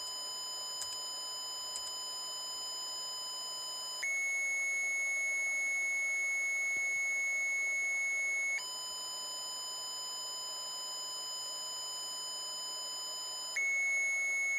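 Small loudspeaker driven by an Arduino playing square-wave tones, a steady buzzy beep that alternates between 1 kilohertz and 2.2 kilohertz. It starts on the lower tone, jumps to the louder higher tone about four seconds in, drops back to the lower one after about eight and a half seconds, and goes high again near the end.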